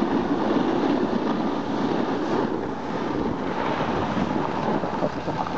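Snowboard sliding and scraping over groomed snow at speed, mixed with wind buffeting the microphone: a steady rushing noise.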